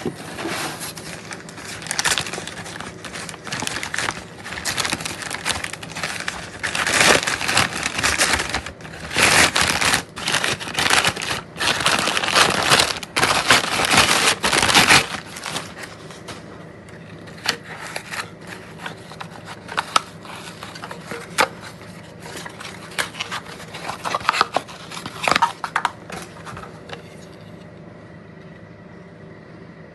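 Packaging crinkling and rustling as it is handled, with many sharp clicks and scrapes; dense for about the first fifteen seconds, then only scattered clicks.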